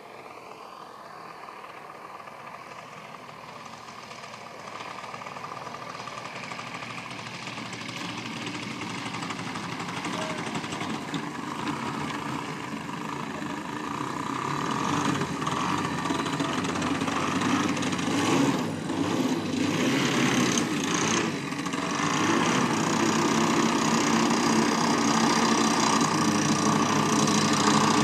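Engine of a large radio-controlled Tiger Moth biplane model running at low throttle, growing steadily louder as the model lands and taxis closer. There are a few brief dips in level about two-thirds of the way through.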